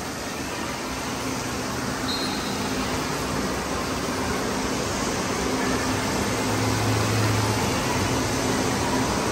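Steady rushing noise of an indoor water park, flowing water and air handling together, growing gradually louder.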